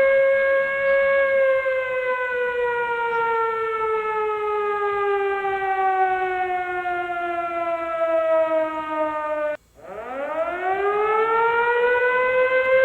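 Civil defense siren wailing. It holds a steady pitch, then slowly falls over several seconds, cuts out abruptly about ten seconds in, and rises quickly back up to its full pitch.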